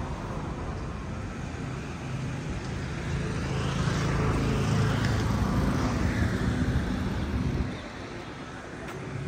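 A motor vehicle engine running close by amid road traffic noise, growing louder about three seconds in and dropping off suddenly near the end.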